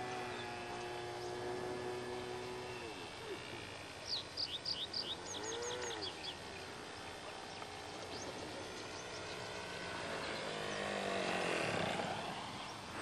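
Engine of a radio-controlled Su-31 model aerobatic plane in flight, a steady drone that drops in pitch about three seconds in. A bird chirps a quick series of short notes around the middle. Near the end the engine swells and falls in pitch as the model passes low over the field.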